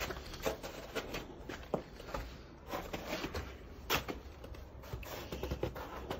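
Footsteps crunching irregularly over old, crusty snow and debris.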